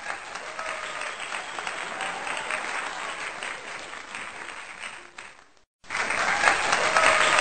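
Applause from a crowd, with some faint voices or whistles in it. It fades out a little over five seconds in, drops to silence for a moment, then starts again louder.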